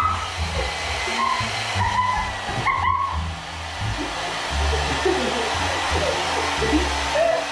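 Handheld hair dryer running steadily, blowing out the baby powder that was poured into it. Background music with a bass beat plays under it.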